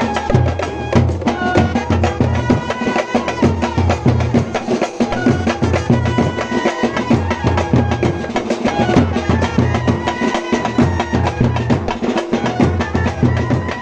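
Indian street brass band playing: clarinets and trumpets carry a melody over a steady beat on a large bass drum and other drums.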